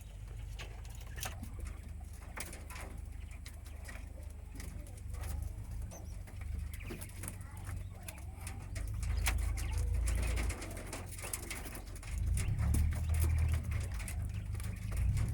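Caged quail making low cooing calls, with scattered light clicks, stronger for a second or so about nine seconds in and again near the end.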